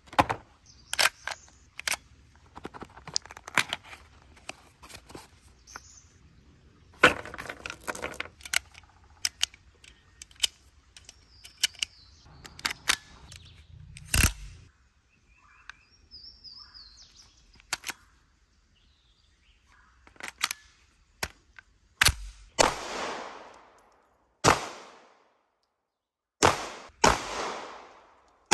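MP5 submachine gun firing at an irregular pace, single shots and short quick strings, several near the end followed by a long echoing tail. Faint bird chirps come in a lull about halfway through.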